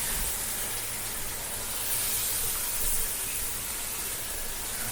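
Bacon sizzling in hot fat on a griddle: a steady, even hiss.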